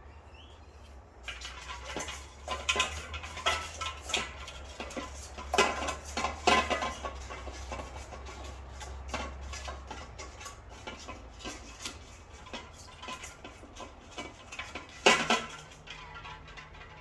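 Small metal parts and tools clinking and tapping irregularly on a work surface while a lawn mower carburettor is being reassembled; the clicks start about a second in, and a louder knock comes near the end.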